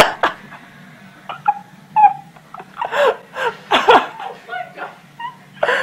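A domestic cat making a run of short, wavering mews, several close together about three seconds in, after a sharp knock at the start.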